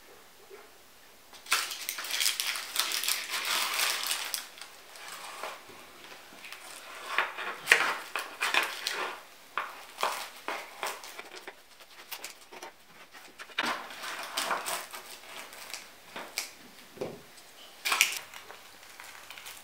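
Knife cutting through the crisp baked puff-pastry crust of a stuffed pizza, crackling and crunching in bursts, with clinks of the knife and a slotted spatula against the metal baking tray. The longest stretch of crunching starts about a second and a half in and lasts about three seconds, followed by shorter bursts and a sharp crunch near the end.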